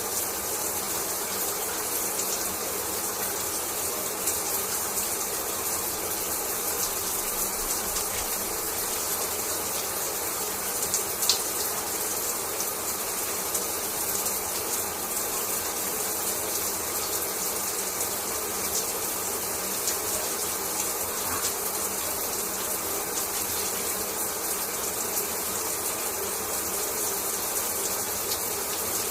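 Shower water spraying and falling steadily, with small faint splashes and drips scattered through it, one a little louder about 11 seconds in.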